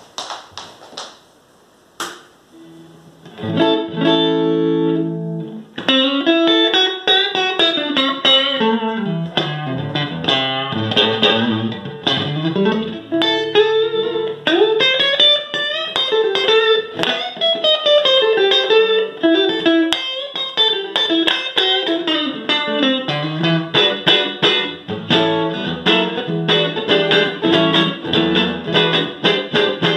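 Fender Stratocaster electric guitar played through a Fender Hot Rod Deluxe tube combo amp: a single-note lead line with notes bending and sliding in pitch, starting about three seconds in after a few clicks and knocks.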